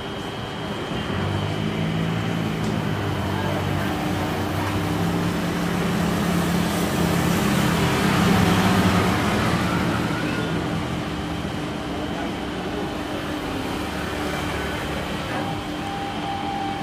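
Airbus A320 airliner's jet engines landing: a steady rush with a thin whine that grows to its loudest about halfway through as the jet passes and touches down, then eases off during the rollout.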